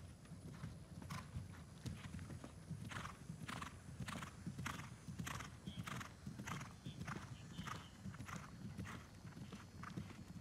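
Horse cantering on grass: a steady, even rhythm of hoofbeats, two to three strikes a second.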